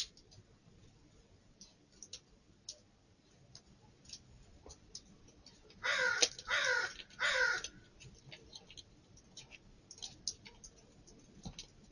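A bird calling three times in quick succession about six seconds in, each call about half a second long and falling in pitch, with faint short chirps and ticks scattered around them.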